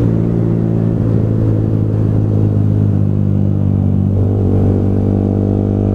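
Yamaha R15M's single-cylinder engine running through an aftermarket full-system exhaust while cruising at steady speed on the road, a loud steady exhaust drone.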